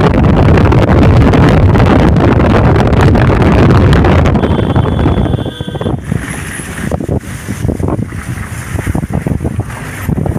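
Wind buffeting the microphone of a moving vehicle over a low road rumble. The noise is loud at first, then drops sharply about halfway through to a quieter, uneven rumble.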